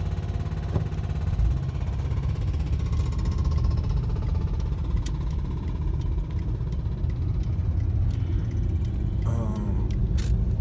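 Car road noise heard from inside the cabin: a steady low rumble, with a short wavering pitched sound about nine seconds in.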